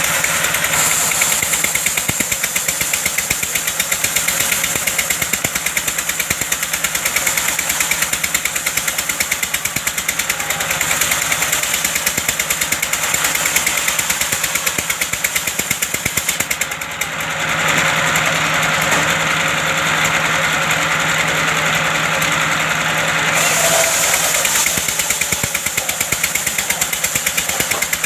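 Engine of a wood-cutting machine running steadily with a rapid, even beat. A little past halfway the sound changes for about six seconds, with a steady low hum and more mid-range noise, then returns to the earlier running sound.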